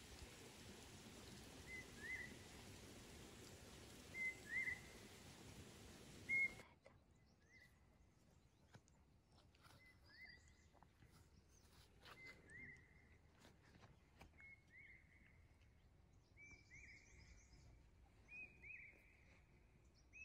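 A bird repeating a short chirping call about every two seconds, faint against quiet outdoor background noise.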